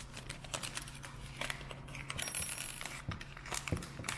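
Small plastic packet being handled and opened by hand: a scattered run of light clicks, crinkles and rustles.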